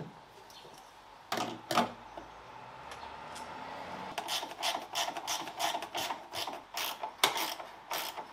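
Hand tools and metal parts knocking and clicking as an old ignition coil is unbolted and a new one fitted. Two knocks come about a second in, then a quick, irregular run of clicks, several a second, from about four seconds in.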